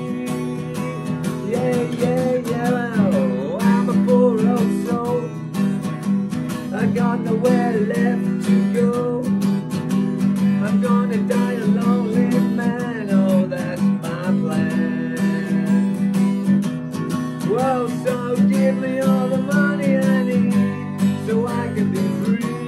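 Steel-string acoustic guitar strummed steadily, with a man's voice singing along over it.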